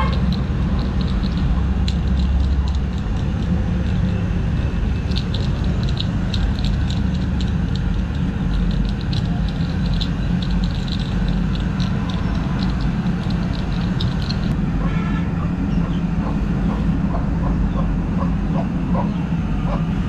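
Steady low mechanical rumble, with a run of light clicks in the middle as a hand stitcher roller is worked over a rubber repair patch on a truck tyre sidewall. A few short higher blips come near the end.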